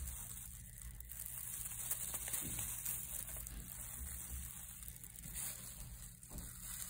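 Faint rustling and crinkling of a loose plastic disposable glove with small handling ticks, as epoxy resin is poured and stirred in a silicone mold, over a steady hiss.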